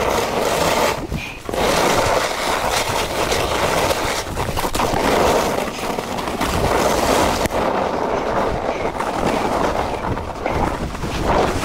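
Snowboard sliding and carving through soft snow: a continuous scraping hiss of the board's base and edges on snow that swells and eases with each turn.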